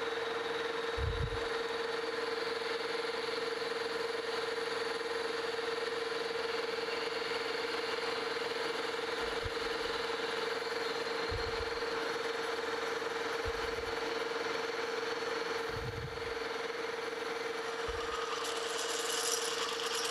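Metal lathe running with a steady hum while an 11/16-inch twist drill, fed from the tailstock, bores through a cast iron wheel hub, with a few low thumps along the way. The cutting gets brighter and scratchier near the end.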